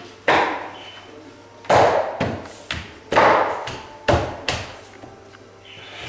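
A bamboo click-lock floorboard being knocked down into its joint on a floating floor: a series of about seven sharp knocks over roughly four seconds, each with a short fading ring.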